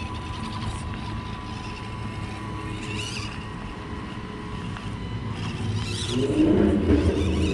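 Small electric motors and gear drives of 1/24-scale RC rock crawlers running as they crawl. A louder low rumble builds near the end.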